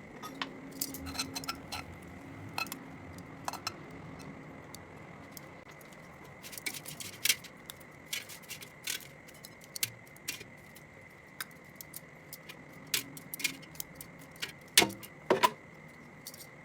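Cutlery and crockery clicking and clinking as food is served onto a plate: a scatter of light, sharp taps, busiest and loudest near the end, over a faint steady high hum.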